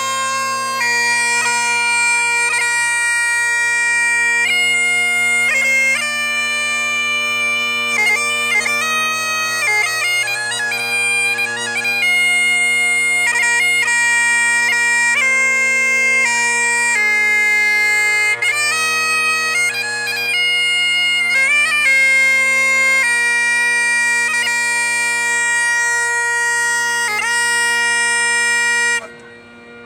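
Bagpipes playing a tune over steady drones, cutting off abruptly near the end.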